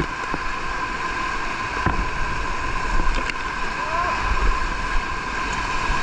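Whitewater rapids rushing and splashing against an inflatable raft, with wind buffeting the microphone. A brief faint shout comes about four seconds in.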